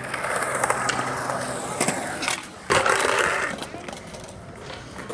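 Skateboard wheels rolling on concrete, with a few sharp clacks of the board. About two and a half seconds in, a louder rolling rush starts suddenly and dies away after about a second.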